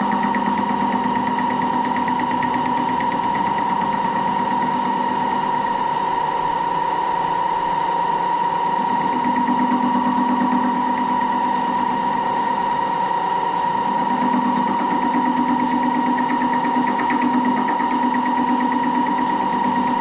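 Moore jig borer running, its spinning boring head cutting a radius in a metal part. A steady high whine sounds throughout, with a lower hum that swells and fades a few times.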